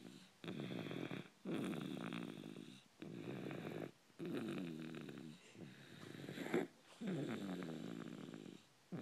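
Steady snoring in its sleep: about six buzzing snoring breaths, each roughly a second long with a pitch that slides down, in a regular rhythm of about one every second and a half.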